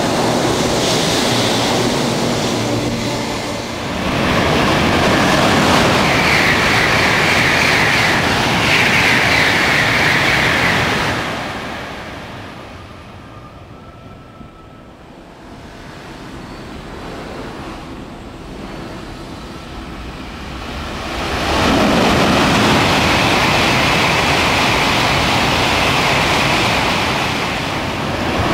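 Shinkansen bullet trains passing through a station at speed. A loud rush of air and wheels carries a steady high whine and dies away about eleven seconds in. After a quieter stretch, a second train's rush builds up loud again a little past twenty seconds in.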